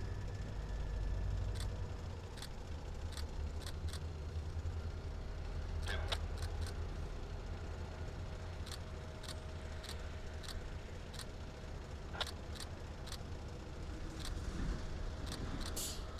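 Diesel freight locomotive running with a steady low rumble, overlaid by a string of sharp metallic clicks every half second or so.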